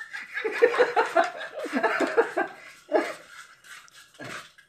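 A man laughing in a quick run of short bursts for about two seconds, then two shorter bursts of laughter.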